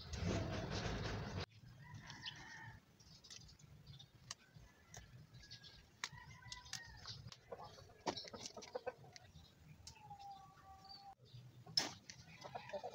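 Chickens clucking faintly on and off, with a few sharp clicks. A short burst of louder noise comes right at the start.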